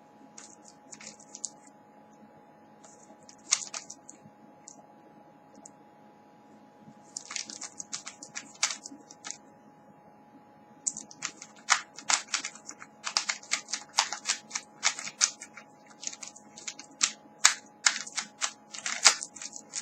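Rubik's Cube layers being turned by hand: plastic clicking, a few scattered turns at first, then quick runs of turns from about halfway on as the solve nears its end.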